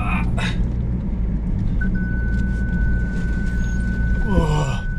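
4x4 pickup engine running at a low crawl, heard from inside the cab, with a steady high electronic warning beep that sounds briefly and then holds continuously from about two seconds in. A brief falling sound comes near the end.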